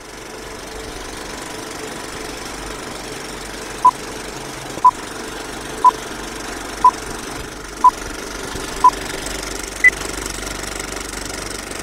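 Film-leader countdown sound effect: a film projector runs steadily with clattering and crackle, while six short beeps sound a second apart, followed a second later by one higher-pitched beep.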